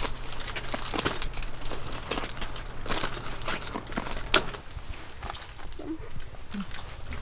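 Rustling and crinkling of things being handled, with many scattered clicks and taps, over a steady low hum that stops about four and a half seconds in.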